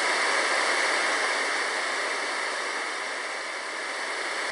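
A steady, even rushing noise with no pitch or rhythm, which switches on and off abruptly as if edited in.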